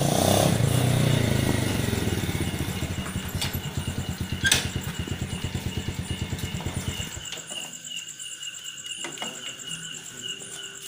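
Motorcycle engine running as it pulls up, then idling with an even beat before it is switched off about seven seconds in. A sharp click sounds about four and a half seconds in.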